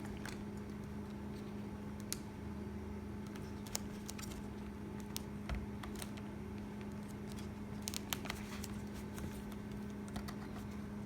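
Scattered light clicks and taps of hands working on a Dell Latitude 5400 laptop's insides, prying at the swollen battery and its stiff connector, over a steady low hum.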